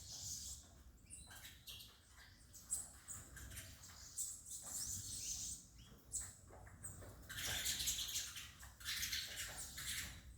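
Saffron finches chirping and calling, a run of short high notes that grows busier about seven seconds in.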